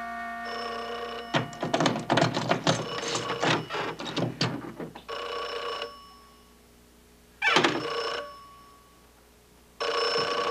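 Telephone bell ringing in short bursts, four times. Between the first two rings comes a few seconds of clattering and thumping as things are pushed aside to find the phone.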